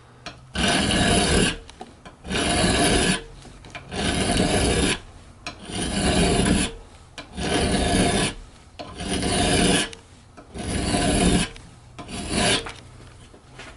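Hand file rasping across the steel lock bar edge of a folding knife in about eight long, even strokes, one every second and a half or so, taking off a little material so the lock will engage.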